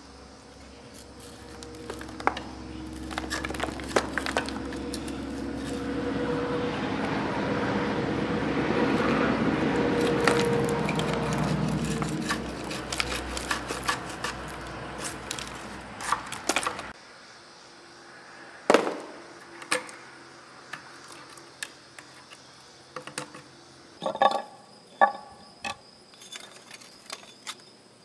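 A hand tool scraping caked grease and dirt off the rusty final drive housing of an Oliver OC46 crawler: a rough, rasping scrape full of small clicks that swells and fades over about fifteen seconds. After an abrupt cut, scattered light metal clinks follow.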